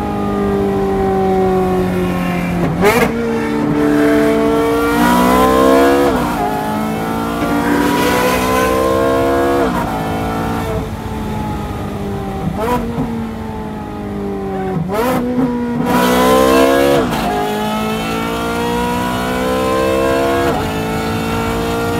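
Ferrari 430 Scuderia's 4.3-litre V8, on headers and a loud aftermarket exhaust, accelerating and easing off through several gear changes. Its pitch climbs and falls, and each shift is marked by a sharp crack, about five times.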